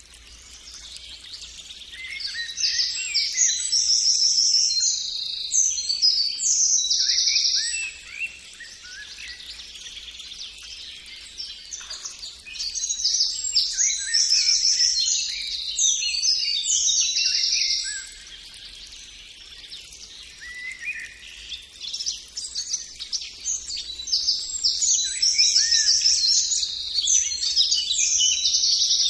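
Songbird singing long, varied phrases of rapid trills and chirps. Each phrase lasts about five seconds and comes roughly every ten seconds, with faint background noise in between.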